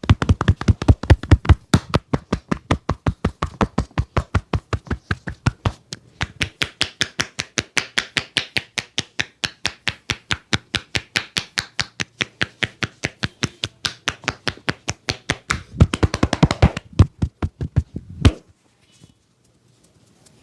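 A barber's hands striking in a rapid percussive (tapotement) massage, about five blows a second. The strikes turn sharper and brighter about six seconds in, come thicker and faster for a moment later on, then stop abruptly shortly before the end.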